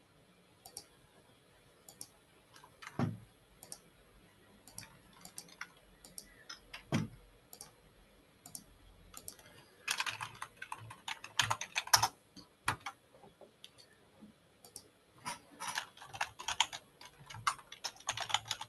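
Typing on a computer keyboard: scattered keystrokes and clicks, then two quick flurries of typing about ten and fifteen seconds in. Two soft thumps come about three and seven seconds in.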